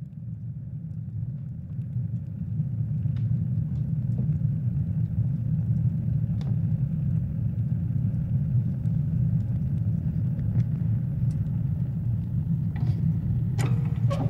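Low, steady rumbling drone that swells up over the first few seconds, with faint scattered clicks and a few sharper crackles near the end.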